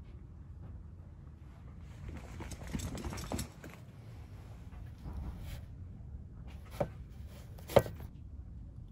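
Footsteps and shuffling movement, then two sharp knocks near the end, the louder one as a book is pulled from a tightly packed shelf.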